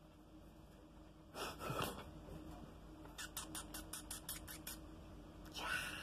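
A canary's beak pecking at a finger poked through the cage bars: a quick run of about ten light clicks, roughly six a second, about three seconds in. Two short breathy puffs come before and after it, one about a second and a half in and one near the end.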